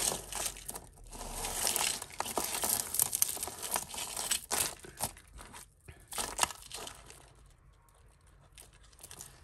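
Hands sorting through a heap of tangled costume jewellery, with chains, beads and small metal pieces clicking and rustling against each other. The handling is busy through the first seven seconds, then dies down.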